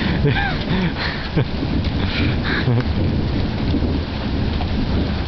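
Steady rain falling hard, with a low, continuous rumble of thunder underneath.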